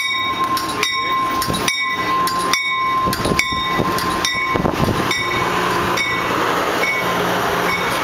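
Amtrak train's old-style pneumatic air bell ringing steadily, a little under one strike a second, as the train departs, over the rumble of passenger cars rolling past. The bell strikes grow fainter near the end.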